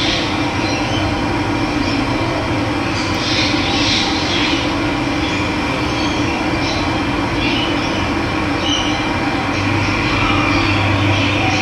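Running water flowing steadily, with short bird calls now and then over it.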